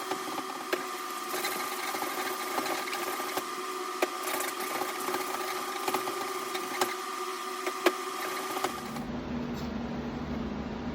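Small electric motor of a handheld tool running steadily with a whine and scattered light clicks. Near the end it cuts suddenly to a different, lower steady hum.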